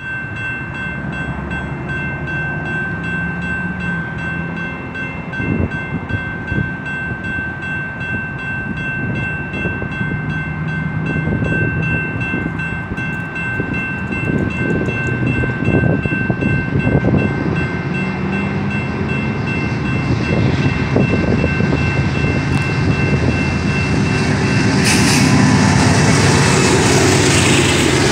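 Railroad grade-crossing warning bell ringing steadily while a BNSF freight train approaches, its horn sounding several times. Near the end the lead locomotive reaches the crossing and the engine and wheel-on-rail noise grows loud and takes over.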